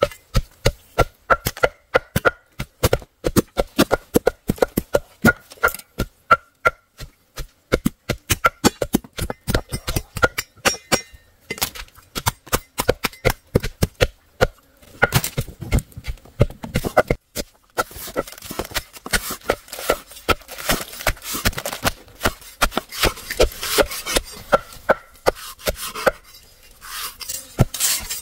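Rapid chopping strikes, several a second, for about the first eleven seconds, then a stretch of scraping and rubbing with occasional strikes.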